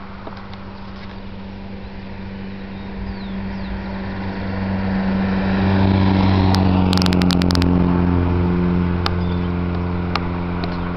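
A motor vehicle's engine running, growing louder over a few seconds and then slowly easing off as its pitch sinks a little. A quick rattle of clicks comes a little past the middle.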